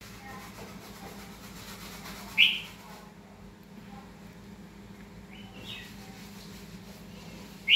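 Caged red-whiskered bulbul giving short, loud, high calls: one about two seconds in, a quick double note past the middle, and another at the end, over a low steady hum.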